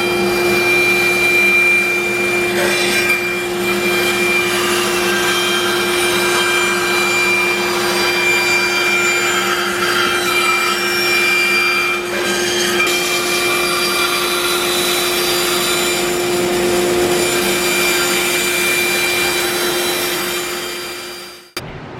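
Electric power tool with a high-speed motor running steadily as it works wood, with a constant whine; it cuts off suddenly near the end.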